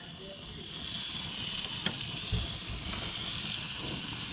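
Bacon-wrapped quail poppers sizzling on a hot grill, the sizzle swelling in the first second and then holding steady, with a few light knocks near the middle.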